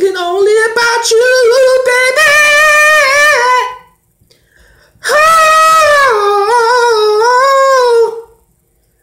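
A man singing unaccompanied in a high voice: two long held phrases with a wavering pitch, the first ending about four seconds in and the second starting a second later and ending near the end.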